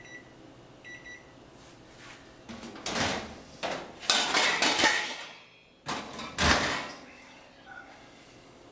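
Electric oven door opened and a metal pan pulled out on the oven rack: a run of clattering metal knocks, ending in a heavy thump about six and a half seconds in. Two short high electronic beeps from the range near the start.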